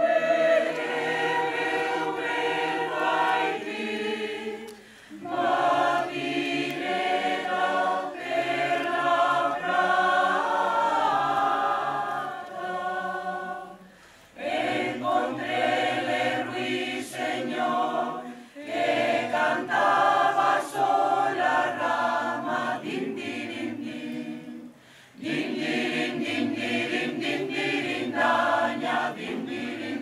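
Mixed choir of men's and women's voices singing a cappella, in sung phrases with brief pauses between them.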